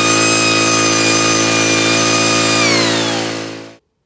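Angle grinder with a cut-off wheel cutting through the end of a running small engine's spinning crankshaft: a loud grinding hiss over the engine's steady running. Near the end a high whine falls in pitch, then the sound cuts off suddenly.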